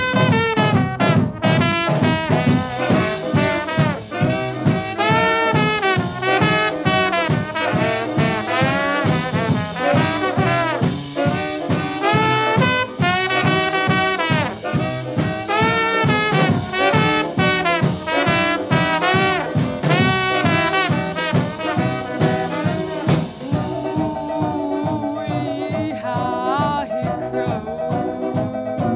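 Rhythm and blues record in an instrumental passage led by brass, with a trombone prominent, over a steady beat.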